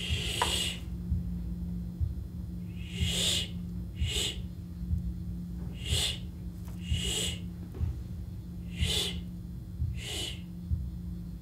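Barn owl screeches: seven short, harsh, hissing shrieks spaced one to two seconds apart, over a steady low hum.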